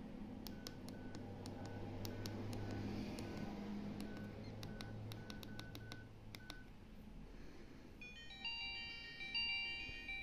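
Fake Nokia C1-01 phone: keys click, each with a short beep, about two a second as the menus are stepped through. About eight seconds in, a bright beeping ringtone melody starts from the phone's speaker.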